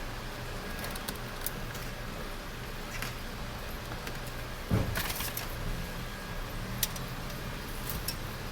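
Clicks and a thump of interior car trim being worked loose with a plastic pry tool, the loudest snap a little before halfway, over a steady low hum.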